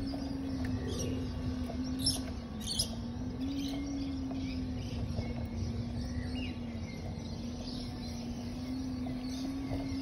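The motor of a small vehicle driven slowly over grass, humming steadily and wavering slightly in pitch, with two short knocks about two and three seconds in and a few faint bird chirps.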